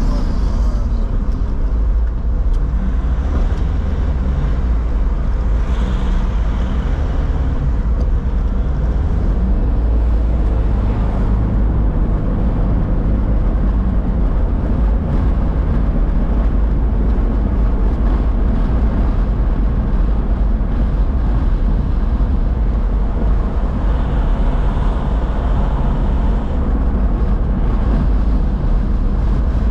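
Steady low rumble of city road traffic, with no distinct single event.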